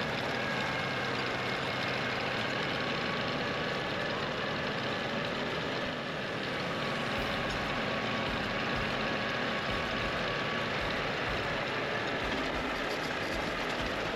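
Engine of the farm ride vehicle running steadily as the ride moves along, with a faint steady whine over it and more low rumble from about halfway through.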